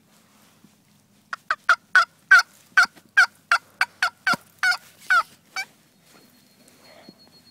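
A run of about a dozen sharp turkey yelps, roughly three a second, starting about a second in and stopping after about four seconds.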